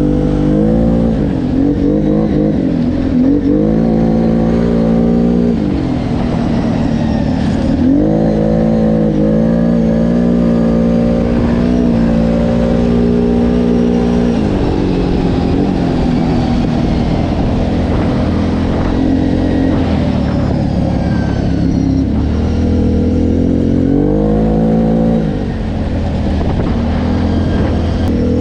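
Off-road vehicle engine running hard, its pitch climbing and then dropping back several times, with steady stretches in between.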